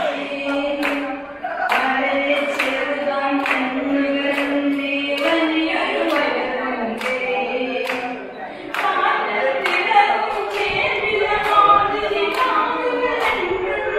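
Several voices singing a Malayalam song together without instruments, the same short refrain repeated. Steady hand clapping keeps the beat throughout.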